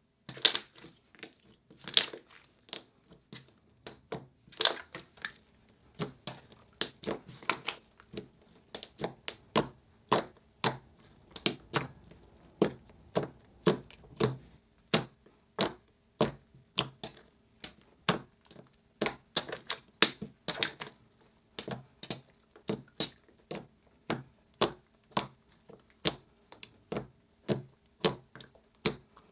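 Hands squeezing and kneading a glossy, slightly sticky slime made with school glue and a lot of paint, giving a run of sharp clicks and pops, about two a second.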